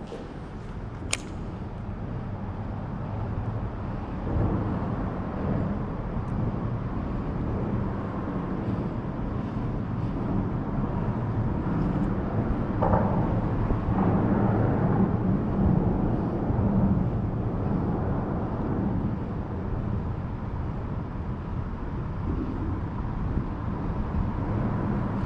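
Steady low engine rumble that swells gradually and peaks a little past the middle.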